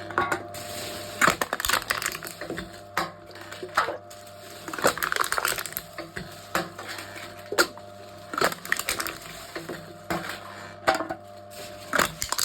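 Aluminium cans being crushed in a wooden can-crushing machine: a series of sharp crunches and cracks, roughly one a second at uneven intervals, over a faint steady hum.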